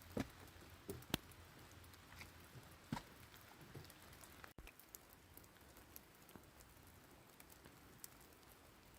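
Rain: individual raindrops tapping and dripping at irregular intervals over a faint steady hiss of falling rain. The drops are sharper and louder in the first half; after a brief cut about halfway through, only fainter, sparser drops remain.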